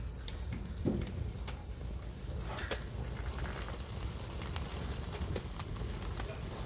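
A heap of burning matchsticks crackling and popping in scattered sharp snaps, over a steady low rumble.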